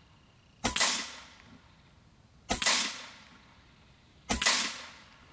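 .25 caliber Taipan Veteran II Tactical PCP air rifle firing three shots about two seconds apart, each a sharp report that dies away over about a second.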